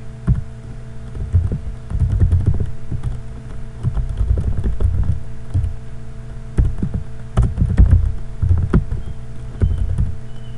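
Computer keyboard keys typed in quick, uneven runs of clicks, over a steady electrical hum and a low rumble on the microphone.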